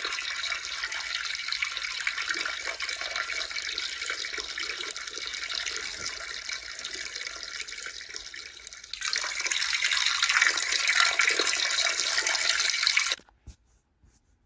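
A person peeing: a steady splashing stream of urine that weakens in the middle, grows stronger again about nine seconds in, then cuts off suddenly near the end.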